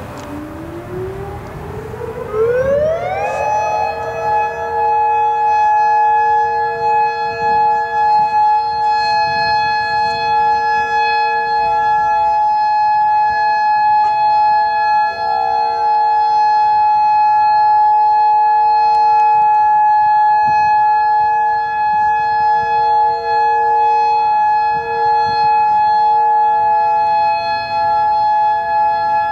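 Federal Signal Modulator 6024 electronic outdoor warning siren sounding its steady alert signal in a test. The pitch rises over the first three seconds or so, then holds as one loud, steady chord of several tones.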